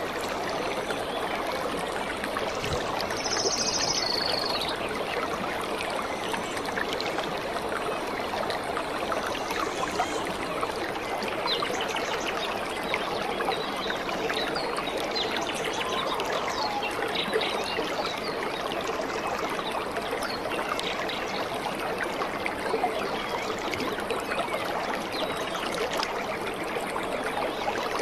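Waterfall crashing onto rocks and into a pool, a steady, even rush of splashing water.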